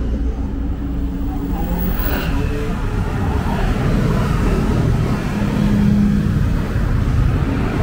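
Motor vehicle traffic running close by, a steady engine rumble.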